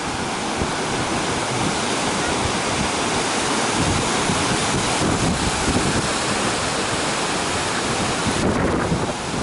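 Ocean surf breaking and washing up a sandy beach, with wind buffeting the microphone. A low wind rumble grows stronger about four seconds in.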